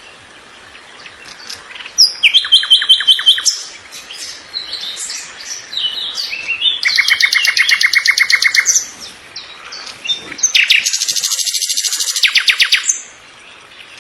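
Songbirds singing: three loud bursts of rapid, evenly repeated trilled notes, each lasting one to two seconds, with scattered shorter chirps between them.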